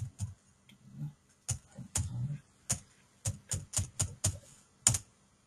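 Typing on a computer keyboard: a dozen or so separate keystrokes at an uneven pace, with the loudest one near the end.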